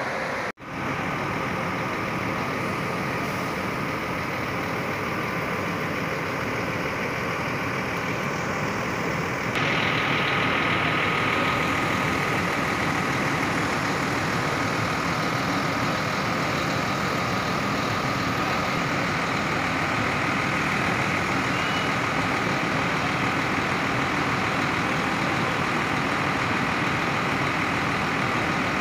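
Intercity coaches' diesel engines running steadily at low speed as they manoeuvre through a bus station yard. A brief dropout comes about half a second in, and about ten seconds in the sound gets a little louder and a steady high whine joins the engine noise.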